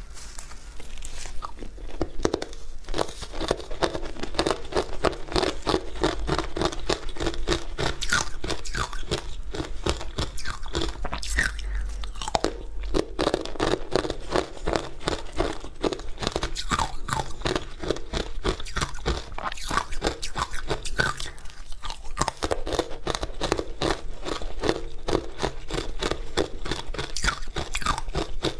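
Close-miked crunching and chewing of frozen ice discs coated in matcha powder, with rapid crunches, several a second, all the way through.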